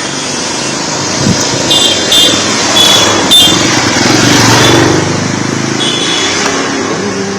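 Road traffic with a motor vehicle passing close: a noisy engine-and-tyre rush that builds to a peak in the middle and fades toward the end, with a few short high-pitched tones.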